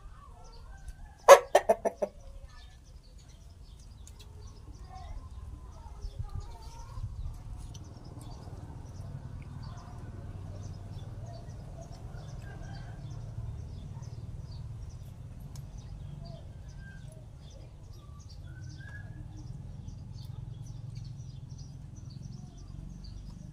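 Rooster giving a short burst of loud, quick clucks about a second in, followed by a faint, steady low rumble of background noise.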